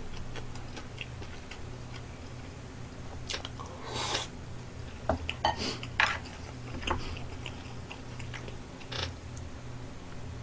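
A person chewing a mouthful of stir-fried gopchang with his mouth closed, with scattered light clicks of chopsticks on the pan and dishes and a few short wet mouth noises, over a faint low hum.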